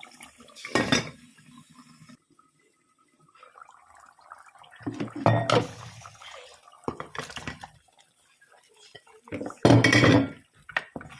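Cooking pot and metal utensils clinking and clattering in several separate bursts, the loudest near the end.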